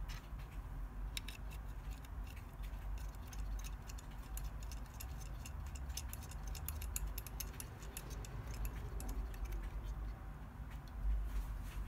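Irregular small clicks and taps, coming thickest in the middle, as a Raspberry Pi board and the parts of its CNC case are handled and fitted together, over a low rumble of handling noise.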